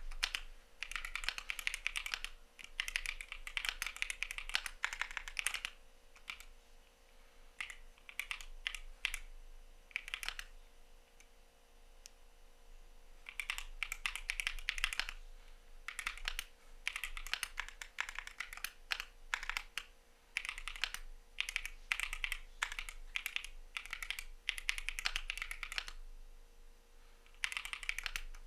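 Fast typing on a CIDOO V75 mechanical keyboard: rapid runs of key clicks in bursts of a few seconds, with short pauses between them.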